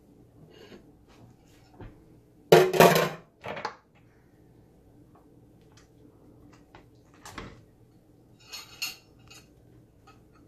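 Utensils clinking and scraping against a glass baking dish and a small plate while baked pasta is cut and served: a few separate clatters, the loudest about two and a half seconds in.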